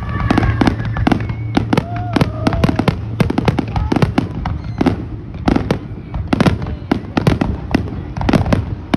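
Aerial fireworks shells bursting in quick succession: dense, overlapping bangs and crackles, several a second, with no let-up.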